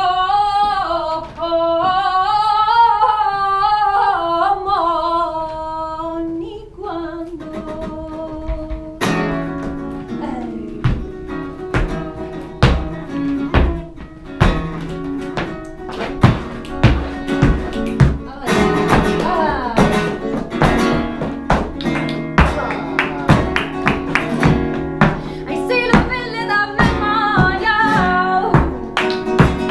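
Flamenco music: a singer holds a long, wavering sung line, then from about nine seconds in a flamenco guitar takes over, strumming and plucking with many sharp percussive strokes. The voice comes back near the end over the guitar.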